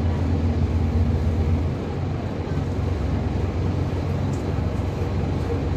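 Scania N230UB bus's five-cylinder diesel engine idling while the bus stands still, heard from the upper deck as a steady low hum that drops slightly in level about two seconds in.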